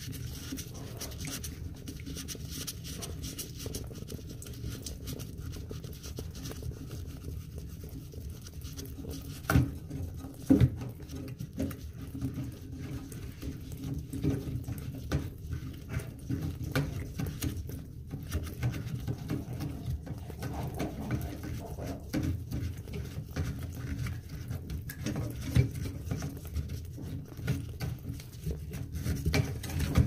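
A gloved hand works the plastic coupling nut of a toilet fill valve's supply hose under the tank. It makes a steady run of small scratchy rubbing and clicking noises, with two sharper knocks about ten seconds in.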